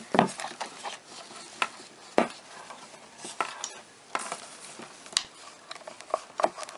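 Clicks, knocks and scraping of a Corvette C5 side-mirror head and its base being handled and pressed together over the spring-loaded pivot stud. Sharper knocks come about a fifth of a second in and about two seconds in.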